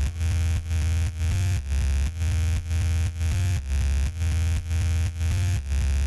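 Loud electronic music in a dubstep style: a heavy, distorted synth bass pulsing about twice a second under a noisy high layer.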